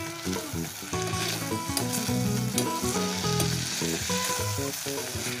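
Sliced papaya and tomato sizzling in a stainless steel pot as a metal spoon stirs them, with a few light clicks of the spoon against the pot. Background music with held notes plays underneath.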